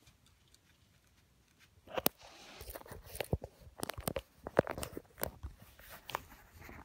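Handling noise: irregular sharp clicks, taps and rustling from hands fiddling with a bare circuit board and its loose wires. It starts about two seconds in, after a quiet opening.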